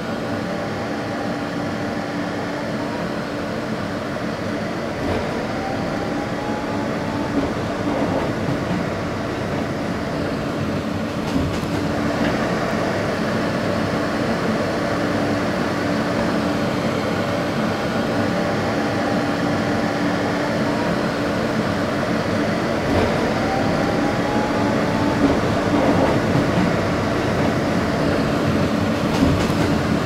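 New York City subway train running, heard from inside the car at its end door: a steady rumble of wheels on rail, with a motor whine that rises in pitch several times and an occasional clack over the rail joints.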